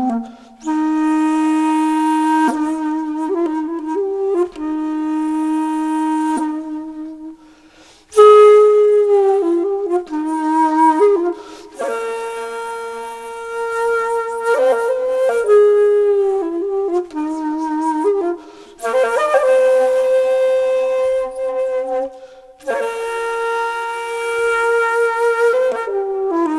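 Background music: a slow solo flute melody of long held notes, played in phrases a few seconds long with short pauses between them.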